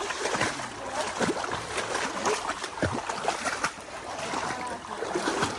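Irregular splashing and sloshing of people wading through shallow bog water.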